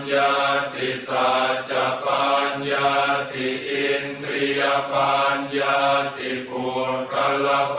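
Thai Buddhist funeral chant, voices chanting Pali verses in a steady, even rhythm of drawn-out syllables on a low, unchanging pitch.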